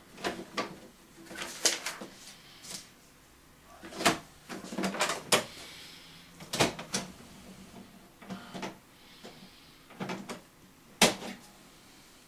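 Irregular plastic clicks and knocks from an HP all-in-one inkjet printer as its cartridge access door is opened and the ink cartridges in the carriage are handled. The sharpest click comes about 11 seconds in.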